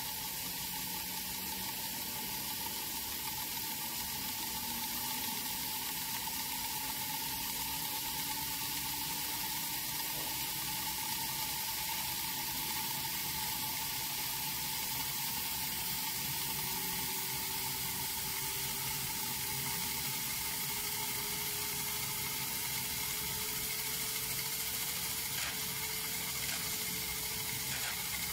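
Whizzer toy steam turbine running: a steady hiss and sizzle of steam jetting from its tin-can boiler onto the small turbine wheel, with a faint whine that slowly rises in pitch as the wheel speeds up.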